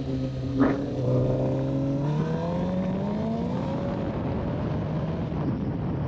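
Suzuki GSX-R's inline-four engine heard from the rider's seat: it runs at a steady pitch, then climbs in pitch for a second or so as the bike accelerates, with a short sharp crack about a second in. From the middle on, wind and road rush on the microphone cover most of the engine note.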